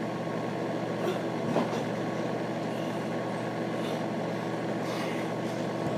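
Steady droning hum with a few faint knocks, the clearest about one and a half seconds in.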